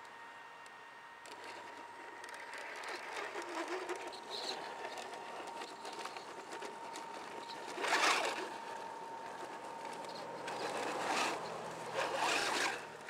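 Scale RC crawler driving over rough ground: its electric motor whining, with louder bursts of tires scrabbling on dirt and stones about eight seconds in and again near the end.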